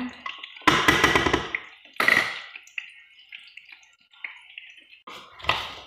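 A utensil stirring and scraping in a stainless steel pot of chicken, with a burst of clattering strokes about a second in and a ringing metal clink about two seconds in, then lighter knocks and another short clatter near the end.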